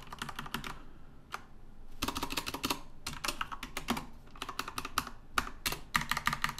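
Typing on a computer keyboard: quick runs of key clicks broken by short pauses.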